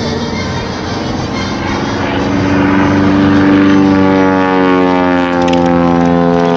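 Great Lakes biplane's inverted inline engine and propeller droning overhead during an aerobatic pass; the engine note slides slowly down in pitch and grows louder from about the middle.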